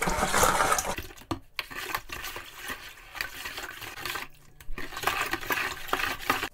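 A long plastic stirring spoon swishing sugar water round in a plastic bucket, with a few sharp knocks of the spoon. It is mixing a wine must to dissolve the sugar. It is loudest in the first second or so, then comes in uneven swishes.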